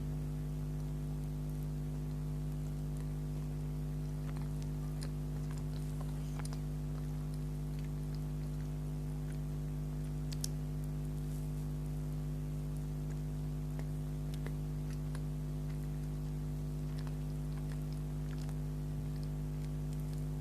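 Chewing and small wet mouth clicks of someone eating a soft bakery item such as a donut or cupcake, scattered faintly through, over a steady low electrical hum that is the loudest sound.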